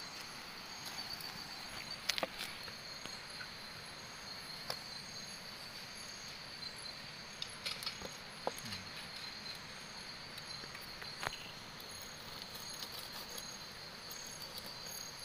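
Steady chorus of insects, a constant high-pitched trilling on two pitches. A few short sharp clicks and crinkles rise above it, from a knife and plastic sacking as a small fish is cleaned.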